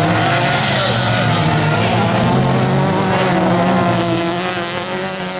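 Several autocross cars racing on a dirt course, their engines running hard at once, with pitches rising and falling as they accelerate and shift.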